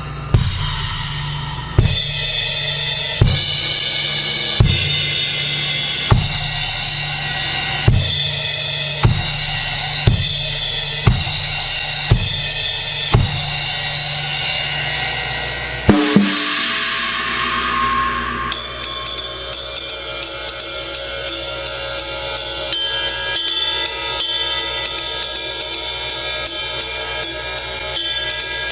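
A Pearl Vision drum kit with Zildjian cymbals being played: heavy hits with bass drum and crashing cymbal about every second and a half, one big crash a little past halfway that rings out, then a steady groove with fast, even cymbal strokes.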